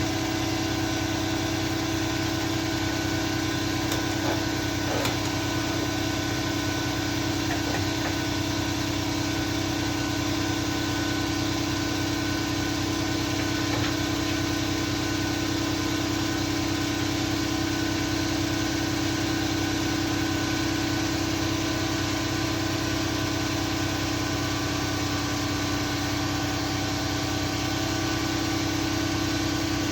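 Steady mechanical hum with a strong low tone, unchanging throughout, with a few faint clicks in the first several seconds.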